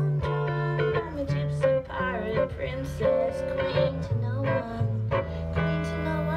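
Live music: a guitar played on stage, with held low notes that change about every second and a wavering melody over them.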